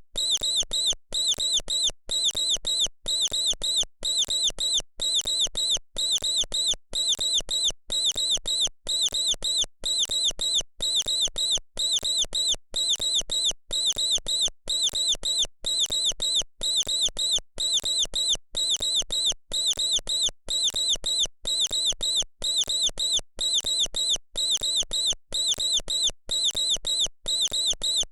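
Mouse squeaking: high-pitched squeaks in quick clusters of about three, repeating evenly about one and a half times a second as a steady loop.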